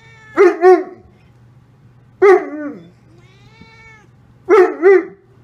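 Greater Swiss Mountain Dog vocalizing in short, whining barks: two close together, then one that falls away at the end, a soft whine, then two more.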